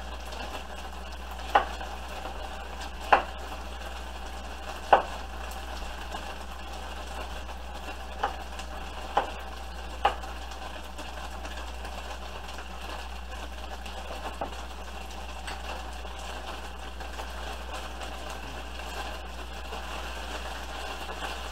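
Knife chopping green bell pepper on a wooden cutting board: six sharp knocks at uneven gaps in the first ten seconds, and one faint one later. Under them, a steady low sizzle of chuck beef frying in a pan.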